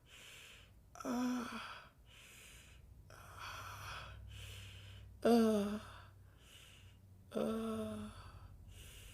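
A man groaning and breathing hard in pain: three short groans that fall in pitch, with breathy sighs between them.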